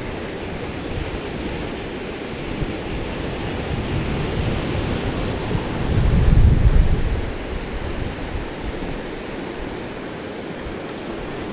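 North Sea surf washing on the beach, with wind buffeting the microphone. A louder low rumble swells about six seconds in.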